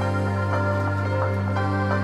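Background music: a steady low bass note held under a melody of short, changing notes.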